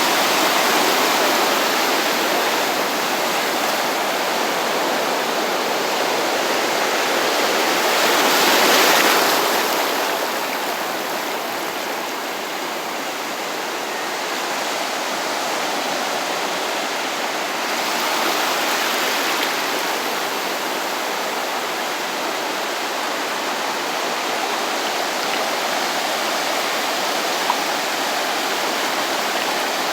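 Small sea waves breaking and washing up the shore, a steady rush of surf that swells louder as a wave breaks about eight seconds in, and again more softly a little later.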